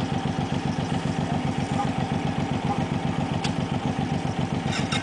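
Suzuki Boulevard cruiser motorcycle engine idling steadily with an even, regular beat, plus a light click about three and a half seconds in and another near the end.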